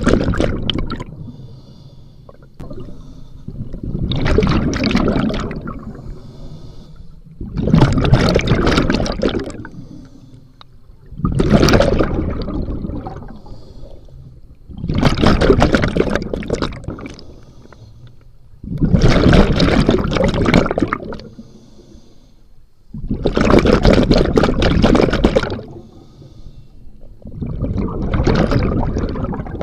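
Scuba diver's exhaled breath leaving the regulator as a rush of bubbles right by the mask-mounted camera, heard underwater through its waterproof case. The bubble bursts come at a steady breathing rhythm, each lasting about two seconds and repeating roughly every four seconds.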